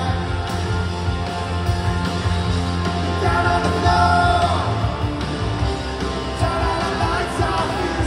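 Rock band playing live, with a man singing lead over electric guitars, bass and drums, heard from the audience in a large hall.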